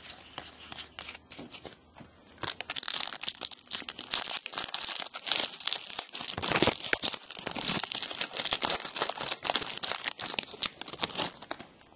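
Foil wrapper of a 2011 Select AFL Champions trading-card pack being torn open and crinkled by hand. It is a dense crackling that starts about two and a half seconds in, after softer rustling, and stops just before the end.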